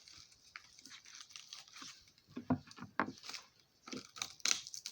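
Packing wrap crinkling and crackling as it is pulled off a glass dish: a run of short, irregular crackles, louder about halfway through and again near the end.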